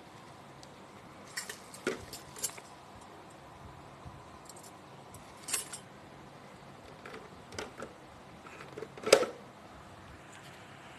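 Parts of a stand mixer being handled, giving scattered light clicks and clinks with the loudest knock about nine seconds in; the motor is not running.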